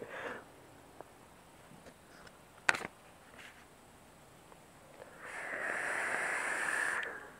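A long drag on a Kennedy-clone rebuildable dripping atomizer with a 0.8-ohm kanthal coil, heard as about two seconds of steady hissing airflow starting about five seconds in. A single sharp click a little before three seconds.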